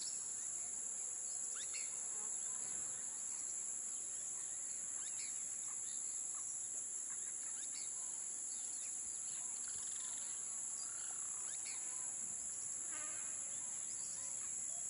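Steady high-pitched chorus of insects, with faint short bird chirps scattered through it.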